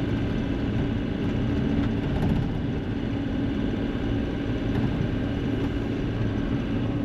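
Tri-axle dump truck's engine running steadily as the truck gets under way, a constant drone with a steady hum.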